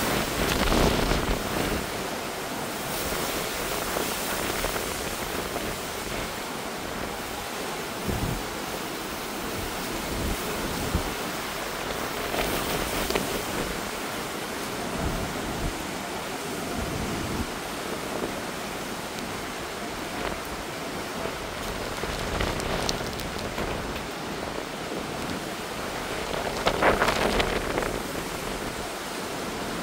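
Heavy hurricane rain and gusting wind, a steady rushing noise, with a louder rush lasting a second or so near the end.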